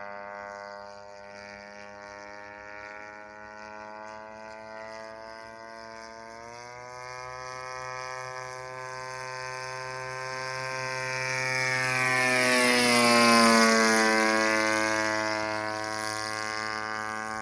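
Engine and propeller of a small aircraft droning overhead as it flies past. The pitch rises a little about six seconds in. It grows louder to a peak around thirteen seconds, the pitch drops as it passes, and then it fades away.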